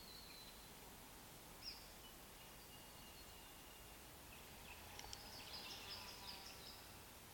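Faint bird calls over quiet outdoor background: a short chirp about two seconds in, a thin held whistle, then a flurry of high calls past the middle.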